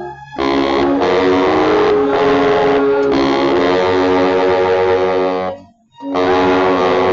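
Baritone saxophone played loudly with a raspy, growling tone, a phrase of held notes that changes pitch every half second to a second, broken by a brief breath just after the start and a longer one a little before six seconds in.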